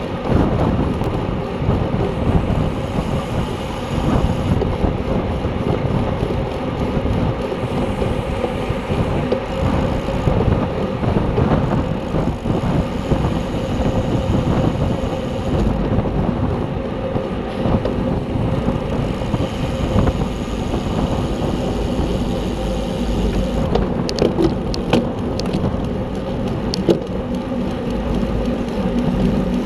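Heavy wind rumble on the microphone of a camera riding along on a road bike at race speed, with tyre and road noise beneath. A few sharp clicks come near the end.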